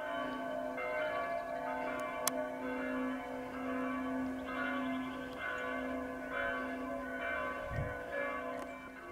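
Church bells ringing, many overlapping tones that keep being struck again and hang on between strikes, with one sharp click about two seconds in.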